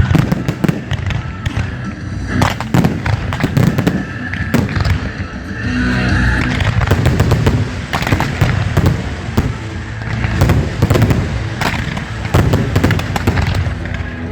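Fireworks going off in a dense, continuous string of bangs and crackles throughout.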